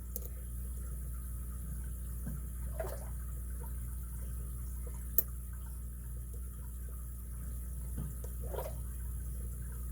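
Faint scratching and clicking of a lock pick and tension wrench working in a brass padlock's keyway, with one sharp click about five seconds in, over a steady low hum.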